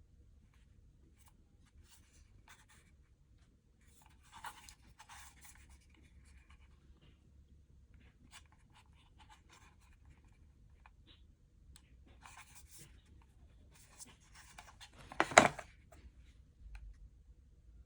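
Light handling noises of a boxed computer mouse and its packaging: scattered small clicks and short scraping rustles, with one much louder rustling knock about fifteen seconds in.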